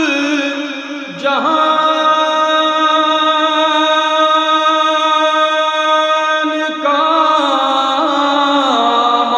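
A man singing an Urdu manqabat in praise of Ali unaccompanied, holding long drawn-out notes that shift pitch about a second in, again around seven seconds and once more near the end.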